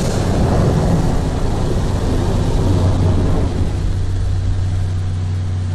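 Automatic car wash machinery running: a loud rushing noise that eases after about three seconds, leaving a steady low hum.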